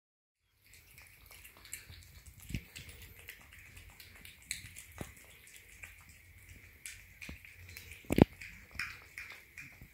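Cat eating soft mashed salmon off a metal plate: rapid wet, clicky smacks of chewing and licking, with one sharper click about eight seconds in. The first half-second is silent.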